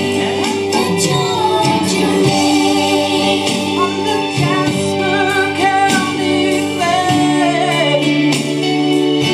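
Country song music playing loudly, with a melodic lead line between sung verses.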